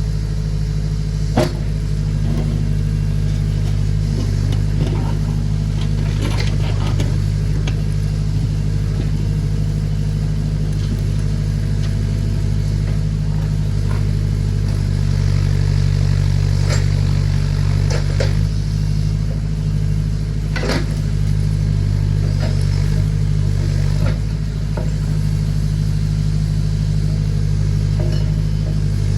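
Tractor engine running steadily while powering a Massey Ferguson BX 50 backhoe as it digs, with a few sharp clanks scattered through.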